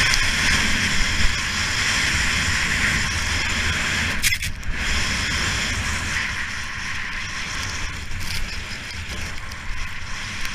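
Skis hissing and scraping over snow on a downhill run, with wind rumbling on the camera's microphone. A brief sharp click about four seconds in.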